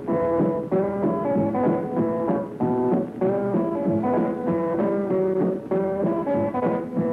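Country swing band playing an instrumental rag, guitars to the fore over a rhythm section, on an old recording that lacks treble.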